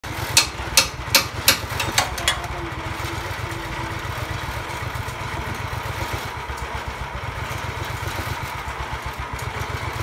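Engine of a portable sawmill running steadily with a low throb. About six sharp knocks come in quick succession in the first two and a half seconds.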